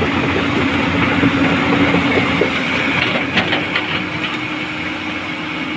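JCB backhoe loader's diesel engine running steadily under work, with a few light clicks a little past halfway.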